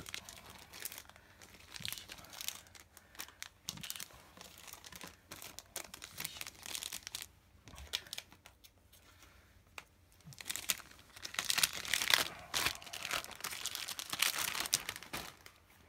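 Clear plastic bags holding model-kit runners crinkling as they are handled and laid out, in irregular rustles that grow louder over the last five seconds.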